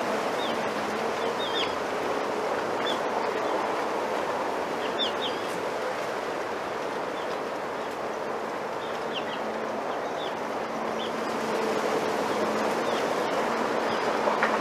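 Wind rustling through bamboo leaves in a steady, even rush, with small birds giving short high chirps now and then.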